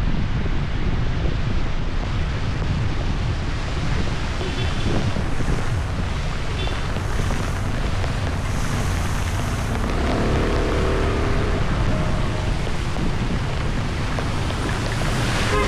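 Steady rush of floodwater with wind buffeting the microphone and a vehicle running underneath; a short pitched tone rises out of it about ten seconds in.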